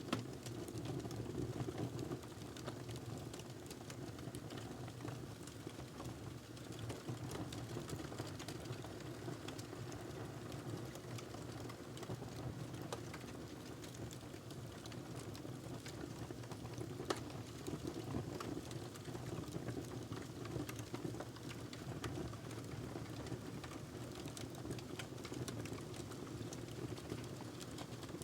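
Wood fire burning in a fireplace, crackling steadily over a low rumble, with scattered sharp pops and one louder pop a little past halfway.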